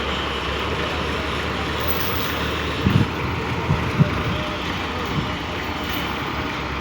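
Steady roadside traffic noise with wind on the microphone, and a few short low thumps about three and four seconds in.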